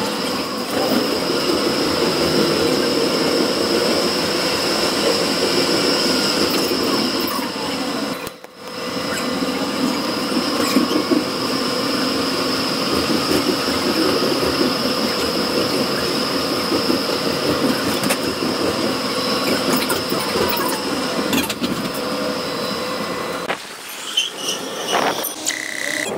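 Electric tram running, heard from inside the passenger cabin: steady rumble of wheels on the rails and the running gear, with a steady high whine over it. The sound drops out briefly about eight seconds in and changes near the end.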